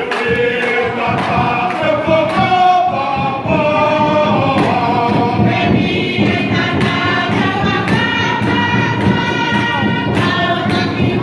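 Tongan ma'ulu'ulu: a large group singing together in chorus, over a regular struck beat.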